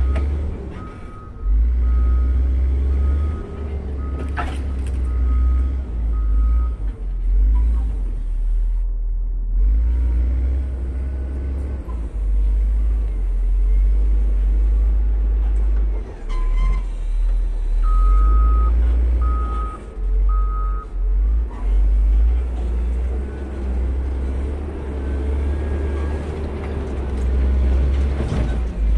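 Caterpillar 140M motor grader's diesel engine running under load with a deep rumble, its reversing alarm beeping steadily at about a beep and a half a second for the first several seconds and again for a few seconds later on, as the machine backs up.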